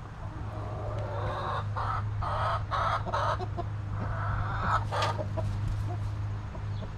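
A hen clucking, a run of short calls between about one and five seconds in, over a steady low hum.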